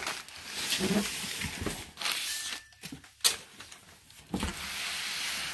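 Cardboard boxes and packaging being handled and shifted, rustling and scraping, with a single sharp knock about three seconds in.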